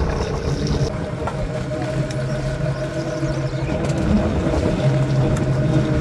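A fishing boat's engine running steadily with a low hum.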